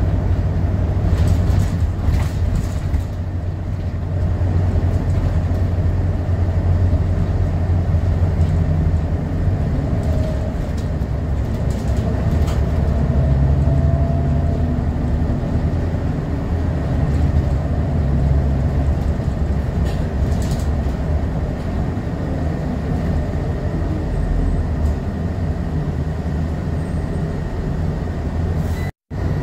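Scania L94UB bus's rear-mounted five-cylinder diesel and ZF automatic drivetrain running as the bus drives, heard from inside the cabin as a steady low drone with road noise. A few short rattles come from the interior fittings. The sound cuts out for a moment just before the end.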